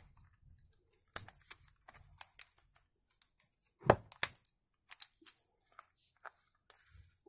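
Box-cutter blade cutting and prying at the thin plastic housing of a water filter cartridge, giving irregular sharp clicks and small cracks, the loudest pair about four seconds in.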